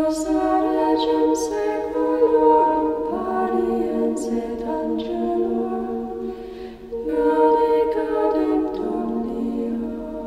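Unaccompanied choir singing, with long held notes in two phrases and a short break for breath a little before the middle.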